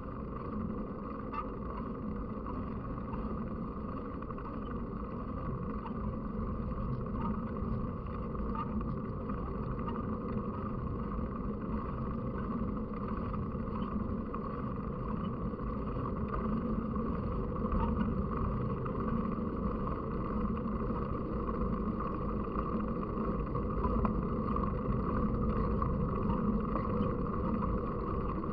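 Steady rumble of riding noise, with wind on the microphone and faint ticks and rattles, slowly growing a little louder.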